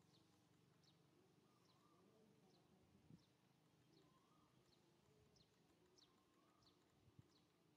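Near silence: faint outdoor ambience with short, high, downward chirps repeating evenly, about one every three-quarters of a second.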